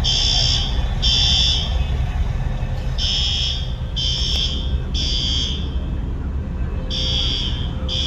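Hotel fire alarm sounding the temporal-three evacuation signal: piercing high beeps about a second apart in groups of three, with a pause of about a second and a half between groups. A steady low rumble runs underneath.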